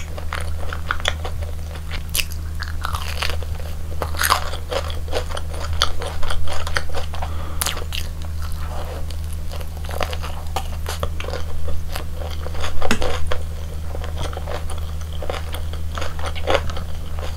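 Close-miked biting and chewing of a crispy deep-fried Korean hot dog: crunches of the fried batter coating and chewing, with louder bursts of crunching about six and thirteen seconds in. A steady low hum runs beneath.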